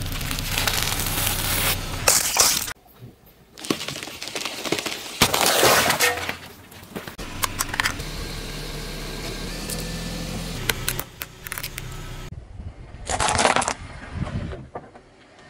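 A car tyre rolling over and crushing small brittle objects such as a packet of crackers and pistachio shells: several separate bursts of crunching and cracking, with a quieter, steadier stretch between them.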